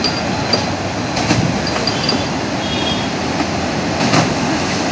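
Canal water gushing out through a weir's sluice gates and churning into white water, a loud, steady rush.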